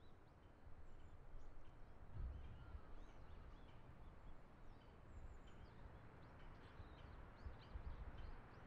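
Faint outdoor ambience: a low rumble of wind with scattered short, high bird chirps.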